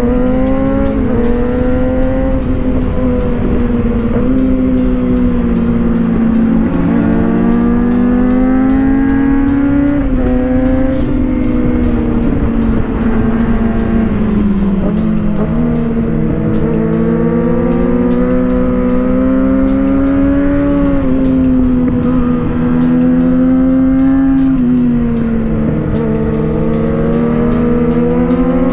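Sport motorcycle engine at high revs, climbing a winding road. Its pitch rises and falls in long sweeps as the throttle opens and closes through the corners, with short drops at the gear changes, over a steady rush of wind.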